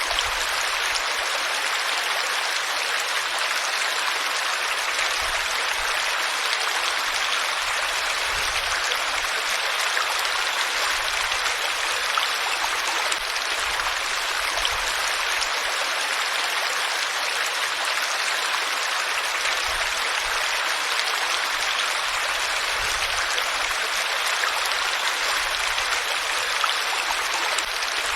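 Flowing water: a steady, even rush of a stream over rocks.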